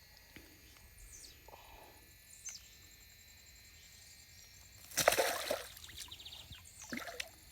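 Insects buzzing steadily and birds chirping now and then, with one brief splash of water about five seconds in.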